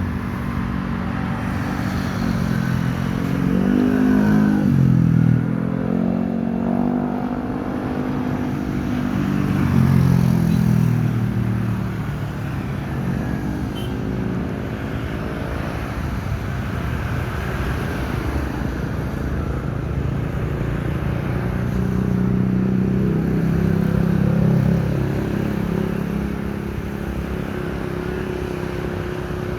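Engines running under a steady rushing noise. Their pitch rises and falls several times and the sound swells with each rise.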